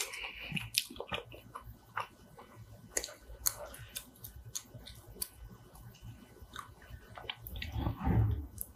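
Close-miked chewing of braised kimchi and rice, with soft wet mouth sounds and scattered sharp clicks of wooden chopsticks and spoon against wooden bowls. A louder, deeper sound comes near the end.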